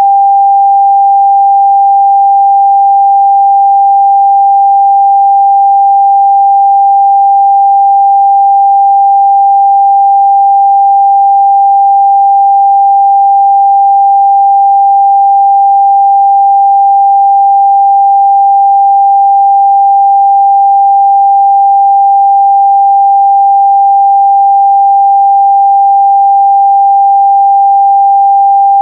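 A steady, loud 794 Hz sine-wave test tone, one pure unchanging pitch.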